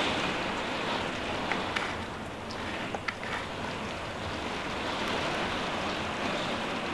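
Heavy rain pouring down in a steady rushing hiss, with a few sharp taps of drops striking close by.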